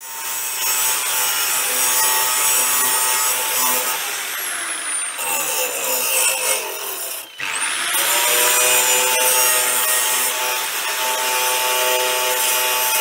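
Large angle grinder with a thin cutting disc cutting through steel plate, the motor whining steadily under load. It stops briefly a little past halfway, then spins back up and carries on cutting.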